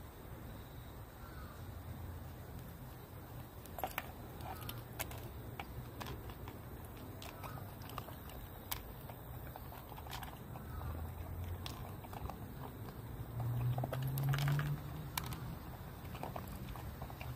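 Small dog eating food pieces from a plastic bowl: scattered sharp clicks of pieces hitting and shifting in the bowl, irregular and a few seconds apart. Faint bird calls sound in the background.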